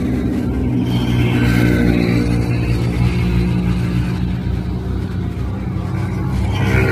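A motor vehicle's engine running steadily, a low even hum.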